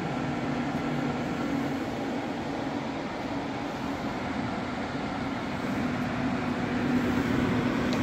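Baseaire Airwerx 35P crawlspace dehumidifier running: a steady whirring hum of its fan with a low steady tone underneath.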